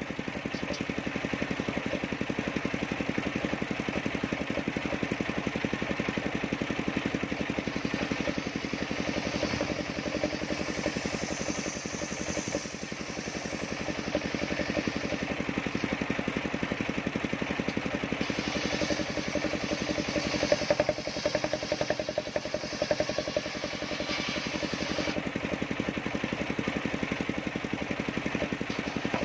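Engine of a large circular-blade sawmill running steadily, a fast even throb with a constant hum.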